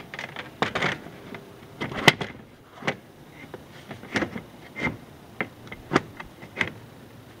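Knocks and clatters of a metal-framed window being fitted into a cut opening in a coop wall and pressed flat against it: a string of sharp taps, the loudest about two seconds in.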